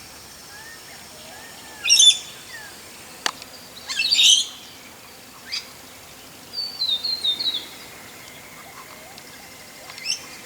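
Wild birds calling in bushland: a few separate high chirps and, around seven seconds in, a quick run of falling notes. A single sharp click comes about three seconds in.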